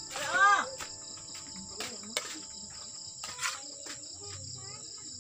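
Crickets chirping in a steady high-pitched chorus. A short pitched call rises and falls about half a second in, and a few brief scrapes follow, from a metal spatula against a wok.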